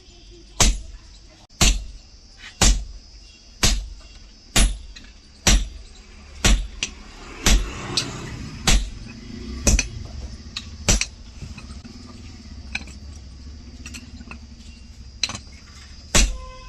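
Hammer blows on hot steel at an anvil, about one a second with lighter taps between, while a tractor leaf spring is forged into an axe head. The blows stop about eleven seconds in, leaving a steady low hum and a few scattered taps.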